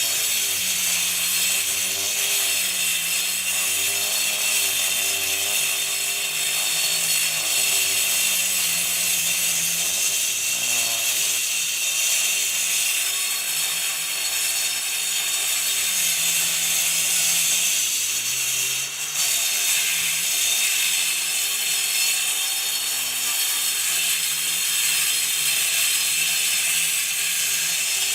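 Angle grinder cutting concrete: a continuous gritty hiss, with the motor's pitch wavering up and down as the disc bites. The level dips briefly about nineteen seconds in.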